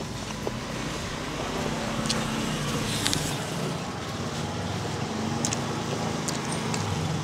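Road traffic with a vehicle engine running steadily as a low hum, and a few short sharp clicks over it.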